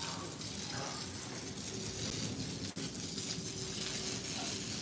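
Water spraying steadily from a garden hose onto grass and plants, an even hiss, with a single sharp click a little past halfway through.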